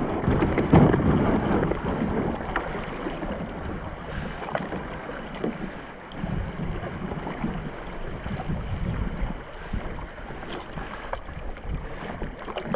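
Water rippling and lapping around a plastic kayak moving down a river current, with wind buffeting the microphone and a few light knocks.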